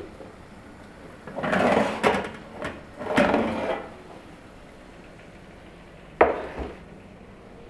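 Metal baking tray of cookies pulled out of an oven, scraping along the oven rack in two bursts with small clicks between them, then a single sharp knock about six seconds in.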